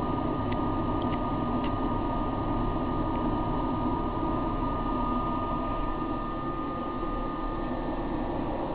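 Steady hum and rushing air from an AL-82 linear amplifier's cooling blower and power supply, running while its two 3-500Z tubes are driven hard to getter them. A few faint ticks come in the first two seconds.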